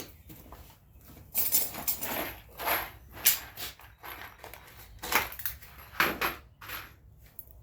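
Irregular clattering and rustling of hardware and tools being handled, in two busy spells.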